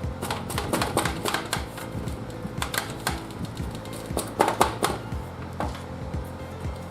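Irregular metallic clicks and clinks, some in quick runs, from hand tools working on the engine's metal parts during disassembly, over background music.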